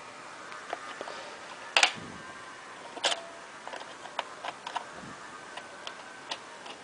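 Light clicks and taps of a laptop memory module being handled and lined up against its slot, with two louder clicks about two and three seconds in.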